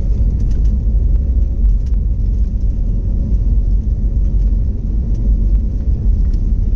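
Airbus A321neo engine and airflow noise heard inside the cabin as a steady low rumble, with a faint steady hum and a few light clicks.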